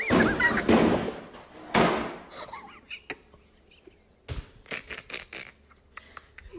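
A person falling to the floor: a loud crash lasting about a second, a second thud shortly after, then scattered light knocks and clicks.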